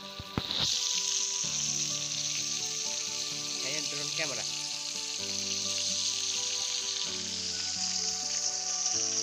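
Vegetables frying in hot oil in a karai (wok), a steady sizzle that jumps louder about half a second in.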